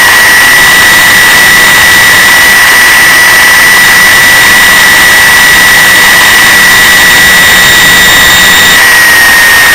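DUMORE toolpost grinder running at high speed with a loud, steady whine as its small wheel is dressed against a diamond nib to sharpen and true it. A few of the fainter upper tones drop out about nine seconds in.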